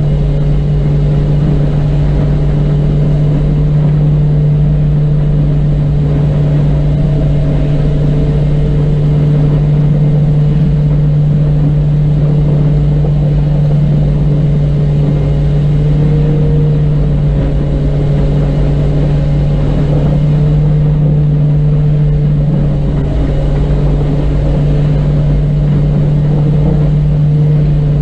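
Steady low drone of twin turboprop engines and propellers heard inside the cockpit of a carrier aircraft on approach, a strong even hum with a few fainter fixed tones above it.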